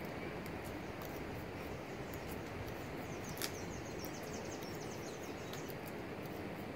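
Steady rural background noise with faint high chirps and ticks running through it, and a single sharp click about three and a half seconds in.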